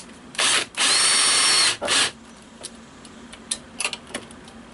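Power drill with a hex nut-driver driving a self-drilling sheet metal screw, whose drill-bit tip cuts its own hole through two layers of sheet metal. There is a short burst, then about a second and a half of steady running with a motor whine, then one brief last burst; a few light clicks follow near the end.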